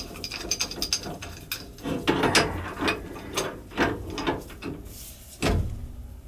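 Hand tools working on metal boiler fittings: a run of irregular ratcheting clicks and knocks, with one sharp knock about five and a half seconds in, as the faulty gas valve is being taken out.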